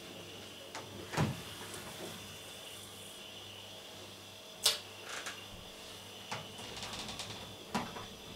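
A few sharp knocks and clicks, the loudest about halfway through and a quick run of light clicks near the end, over a faint steady hum.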